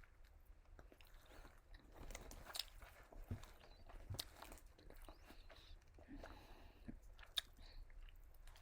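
Faint close-up chewing and biting of fried food, with a few sharp crunches between quieter wet mouth sounds.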